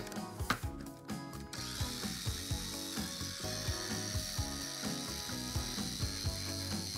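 Electric mini chopper: a few clicks as the bowl and lid are twisted and seated, then about a second and a half in the motor starts and runs steadily, blades whirring through fresh herbs and olive oil to blend them into a pesto. Background music plays underneath.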